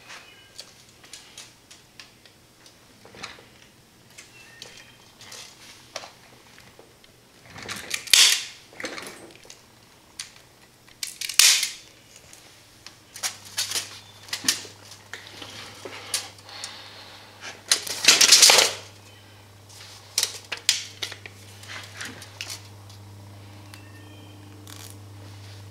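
Zip ties being cinched around ladder-line wire spacers, with the clicking of an all-metal zip tie gun tightening them and snipping off the tails, amid scattered handling clicks. Three louder ratcheting pulls stand out, the last one longest, and a low steady hum comes in about halfway.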